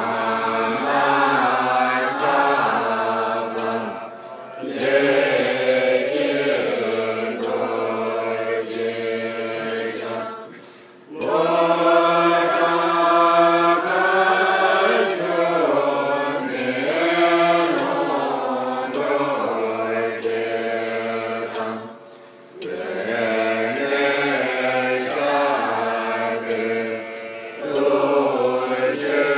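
Group of voices chanting Tibetan Buddhist prayers in unison, in long phrases broken by short pauses for breath. A sharp tick marks time about once a second.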